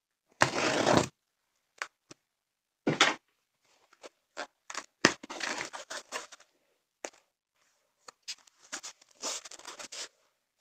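Packing tape on a cardboard box being slit and ripped open, with a loud tearing rip about half a second in and another near three seconds. Short clicks, scrapes and rustles follow as the cardboard flaps are pulled open.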